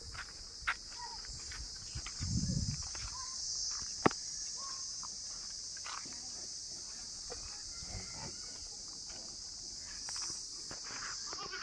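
Steady high-pitched insect drone over scattered footfalls of water buffaloes walking on dry dirt, with a low rumble about two seconds in and a sharp knock about four seconds in.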